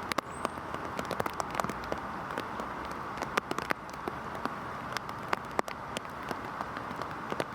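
Heavy rain falling: a steady hiss with many sharp, irregular drop impacts ticking over it.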